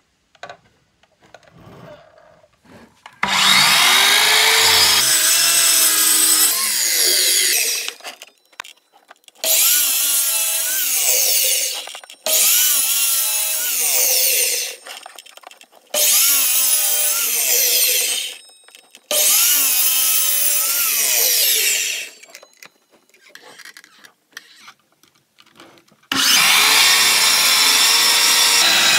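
Miter saw (chop saw) cross-cutting strips from a glued-up cherry and maple hardwood panel. It makes six cuts of a few seconds each, with short pauses between them.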